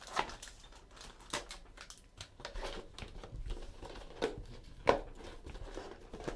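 Trading-card pack wrapper being torn open and crinkled, with irregular sharp crackles and rustling, the loudest crackle about five seconds in.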